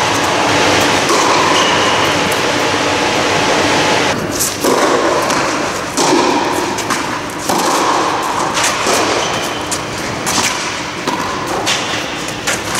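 Tennis rally on a clay court: sharp knocks of racket strikes and ball bounces, coming irregularly from about four seconds in, over a steady loud hiss.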